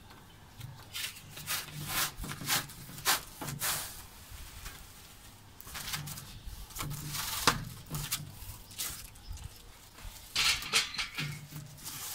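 Protective plastic film being peeled off a clear plastic awning sheet: crackling, rustling bursts that come and go in several spells.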